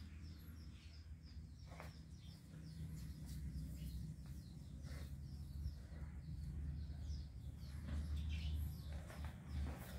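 Small birds chirping, short high chirps repeating several times a second, over a low steady rumble.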